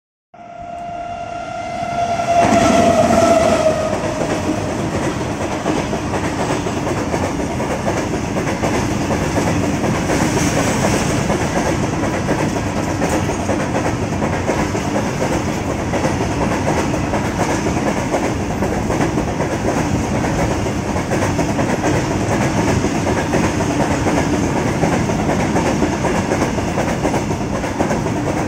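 Electric locomotive sounding one long horn blast of about four seconds, its pitch dipping slightly near the end as it comes past. Then a long freight train of covered wagons rolls steadily by, with the continuous noise of its wheels on the rails.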